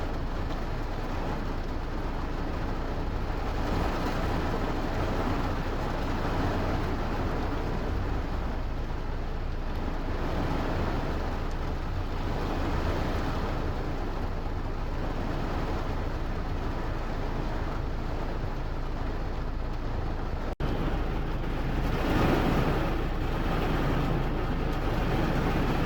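Steady rain noise with a deep rumble underneath. It cuts out for an instant about twenty seconds in and comes back a little louder.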